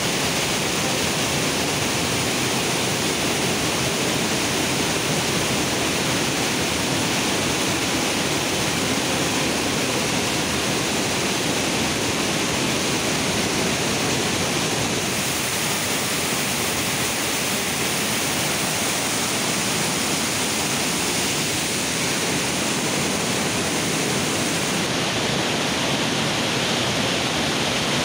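Underground waterfall: water falling and splashing in a steady, loud, unbroken rush.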